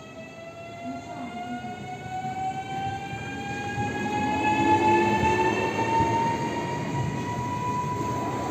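Newag Impuls 36WEh electric multiple unit pulling away: the whine of its traction drive rises steadily in pitch as it accelerates and levels off near the end. Wheel and bogie rumble grows louder as the cars pass close by.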